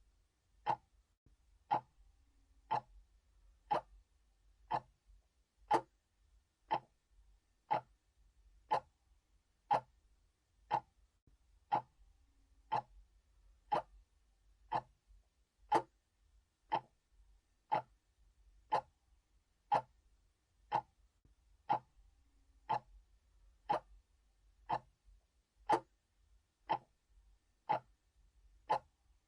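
Analog clock ticking steadily, one sharp tick each second.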